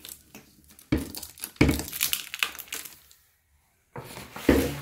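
Plastic wrapping on a toilet seat crinkling and rustling as it is handled, in a busy run of rustles; the sound drops out completely for about a second near the end.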